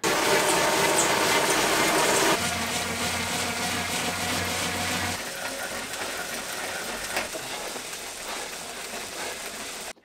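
Wahoo smart bike trainers spinning at full sprint speed, one after another: the KICKR ROLLR roller trainer first and loudest, then the KICKR SNAP wheel-on trainer with a low hum, then the KICKR CORE and KICKR direct-drive trainers, quieter still. The whirring drops a step at each change, about two and a half and five seconds in.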